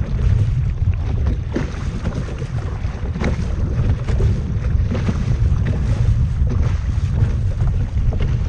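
Wind rumbling heavily on the microphone over sea water washing around a kayak, with short, irregular splashes.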